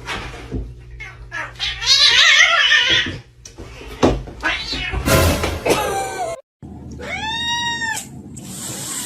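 Cats meowing: several long calls that waver in pitch, then, after an abrupt cut about six and a half seconds in, one clear meow that rises and falls.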